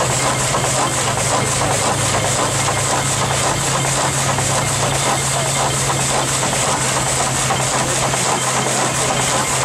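Steam traction engine driving a belt-driven band sawmill, the machinery running steadily with a constant low hum and a continuous hiss.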